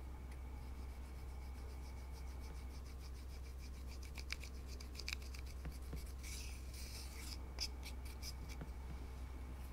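White plastic spatula scraping and crumbling a pressed powder eyeshadow in its plastic compact: a soft, fine rasping that grows denser for about a second partway through, with a few sharp clicks.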